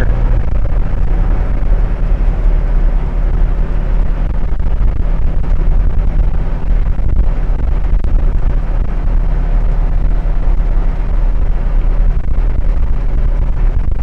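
Steady drone of a 2000 International Blue Bird school bus's engine and road noise while driving, heard from inside the cab.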